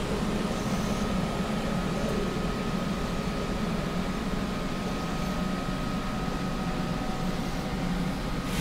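Steady hiss and low hum with a thin steady whine running under it: static from a camera whose audio recording was faulty.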